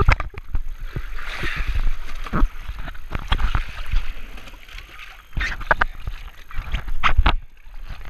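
Seawater sloshing and splashing around a floating shark-diving cage at the waterline, with many irregular knocks and thumps.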